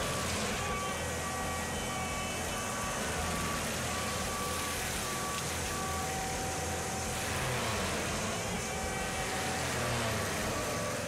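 Tracked forestry mulcher's diesel engine and mulching head running steadily, with a reversing alarm beeping about one and a half times a second that stops about seven seconds in.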